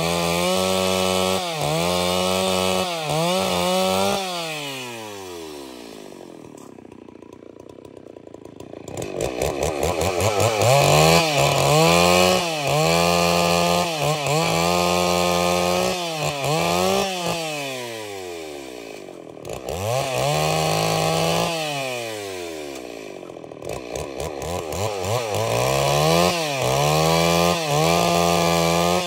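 Stihl MS 381 two-stroke chainsaw ripping red angico wood into boards. It runs at full throttle with its pitch wavering under load. It is let down to idle about four seconds in and again around seventeen seconds in, and revved back up a few seconds later each time.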